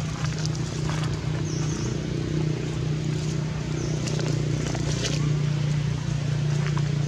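A steady low mechanical hum, like an idling engine, with scattered small clicks and a couple of faint high chirps.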